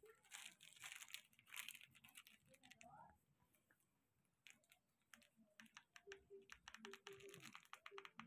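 Near silence, with faint scattered clicks and rustles from a handheld phone being moved about.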